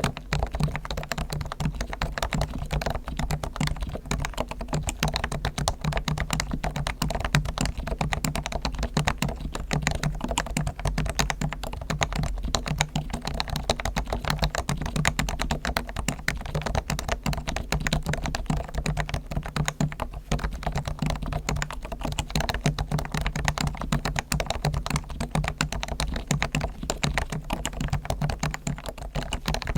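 Continuous fast typing on a Realforce R1 keyboard with Topre electrostatic capacitive switches, fully lubed: Krytox on the springs and sliders, tuned and lubed stabilizers, and sound-dampening foam inside. Keystrokes follow each other rapidly without pause.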